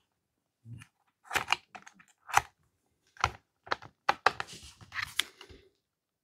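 Irregular sharp clicks and knocks, about a dozen, starting about a second in: a jigsaw blade being fitted into the tool-free blade clamp of a Parkside PSSSA 20 Li B2 cordless jigsaw/sabre saw, with the saw not running.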